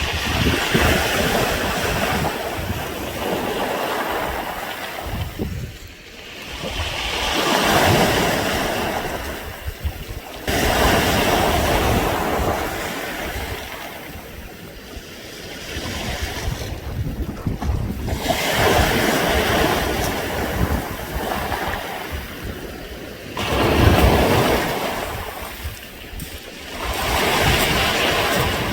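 Waves washing up a beach of smooth round pebbles and draining back, the stones rattling and clattering together as the water pulls through them. The wash swells and fades in surges every few seconds.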